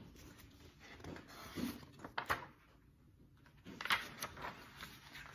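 Pages of a paperback picture book being turned and handled: a few short, soft paper rustles and swishes.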